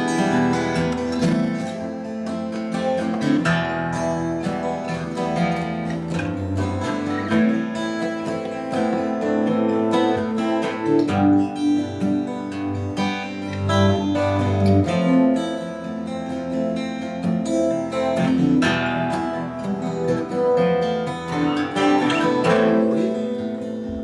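Instrumental background music played on plucked strings, with many notes picked in quick succession over a low bass line.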